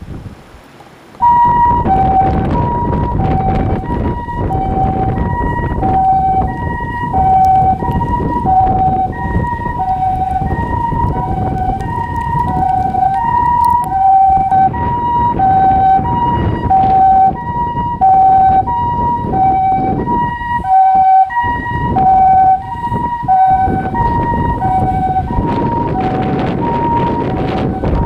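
Japanese ambulance siren sounding its two-tone call, steady high and low notes alternating slowly over and over. It starts abruptly about a second in, over a constant low rumble.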